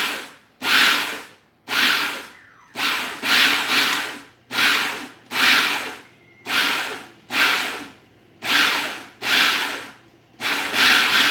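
Food processor pulsed over and over in short bursts, about one a second, each starting sharply and dying away, as its blade cuts cold butter into flour and dry ingredients.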